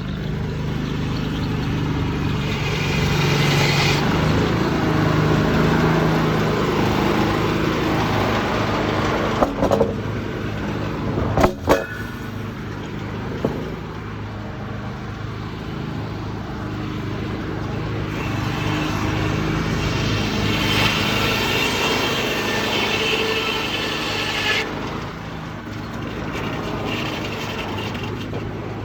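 Sawmill running on its Detroit Diesel 6-71 two-stroke diesel, a steady drone, heard from inside an overall pocket. Twice a louder, higher-pitched noise of the saw cutting timber comes in and stops abruptly, and there are a few sharp knocks near the middle.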